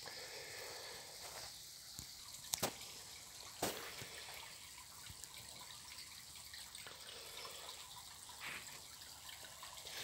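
Faint trickle of a nearly dry stream running over stones, with a few sharp clicks about two and a half and three and a half seconds in.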